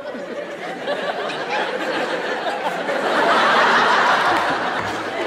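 Studio audience laughing at a punchline, the laughter swelling to its loudest about three seconds in and then easing off.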